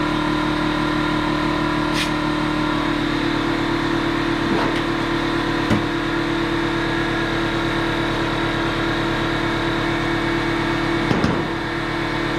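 Air compressor running steadily with a fast, even pulsing, inflating a freshly plugged tire. A few short knocks or clicks break in about two seconds in, near the middle and near the end.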